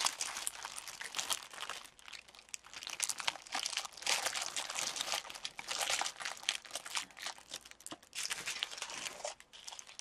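Thin clear plastic bags crinkling as small zip-lock packets of diamond painting drills are handled and slid into a larger plastic bag, in irregular rustling bursts with brief pauses.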